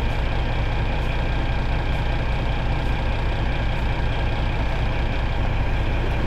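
Straight-piped Caterpillar 3406 inline-six diesel idling steadily, heard from inside the Kenworth W900's cab.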